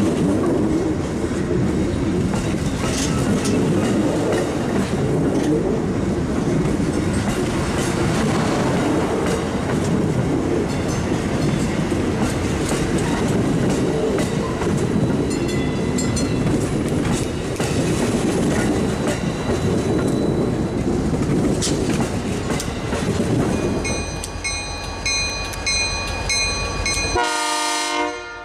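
Amtrak Superliner bilevel passenger cars rolling past close by as the train pulls out, a steady rumble of wheels on rail with clicks over the joints. Near the end a diesel locomotive horn sounds.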